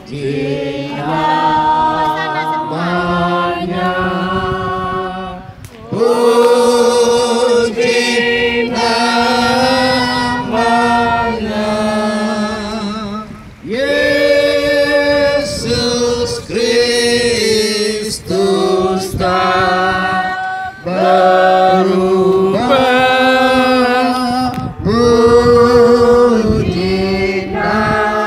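A group of voices singing a church hymn in long held notes with vibrato, breaking briefly between phrases about six and thirteen seconds in.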